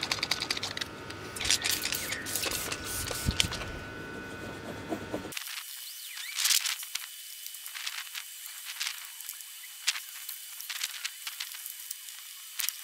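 A trigger spray bottle sprayed in several short hissing bursts, then a microfiber cloth rubbing over the car's painted door panel in quick, faint, scratchy strokes.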